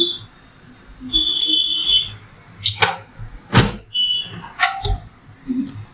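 Heavy-duty long-throat Kangaro stapler in use on a thick paper stack: paper shuffled into place, then several sharp knocks, the loudest a little over halfway in, as the handle is pressed down to drive a staple through. Short high squealing tones come and go in between.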